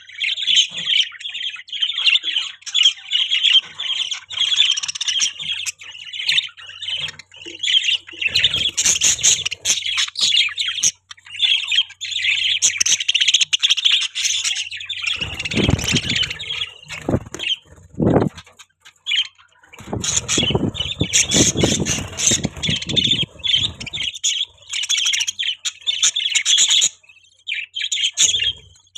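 Several budgies chattering and chirping without pause in a dense, high-pitched warble with squawky notes. A few stretches of low noise come and go in the middle.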